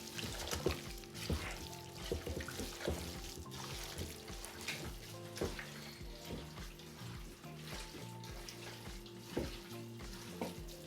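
Raw chicken being mixed by hand in a wet spice marinade: soft, irregular squelching and small clicks, under quiet background music.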